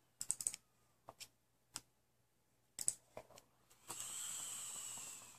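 Several sharp clicks, a quick run of them near the start and a few more scattered after, from the fire button of a vape mod. Then about a second and a half of steady airy hiss as a draw is taken through the freshly rebuilt Kayfun clone atomizer, stopping abruptly near the end.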